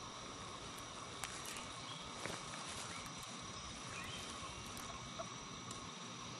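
Steady insect chorus with a background hiss, several high tones held level throughout, and a few faint clicks.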